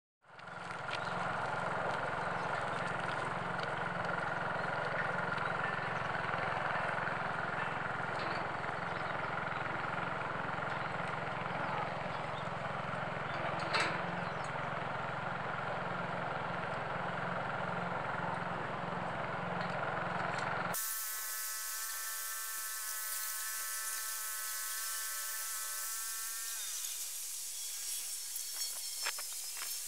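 Steady power-tool or machinery noise from the station construction site, with a constant whine and a regular low pulse. About two-thirds of the way through it cuts off abruptly and is replaced by a held sound of several stacked tones, which slides down in pitch and fades a few seconds later.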